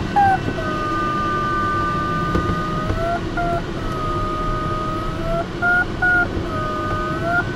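Glider variometer's audio tone: a continuous electronic tone that slowly rises and falls in pitch and breaks into short beeps a few times where the pitch is higher. The beeping signals climbing air. Steady airflow hiss in the cockpit lies underneath.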